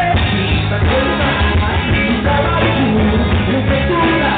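Live forró band playing dance music: sanfona (accordion), bass, zabumba and triangle over a drum kit, loud and continuous.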